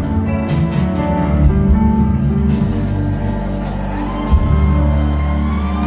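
Live rock band with two electric guitars, bass and drums playing the end of a song: the drum beat stops about two and a half seconds in and the band holds a long ringing chord over a sustained bass note.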